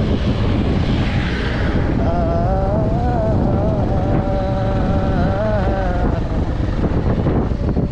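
Wind buffeting a helmet-mounted microphone over a motorcycle's running engine while riding. A wavering tone is heard from about two seconds in until about six seconds in.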